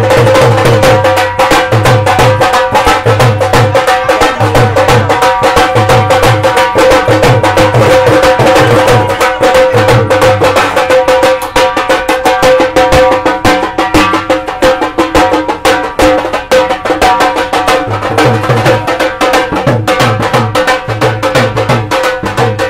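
Dhol drum played loudly at close range, fast driving strokes in a repeating rhythm, over a steady held note.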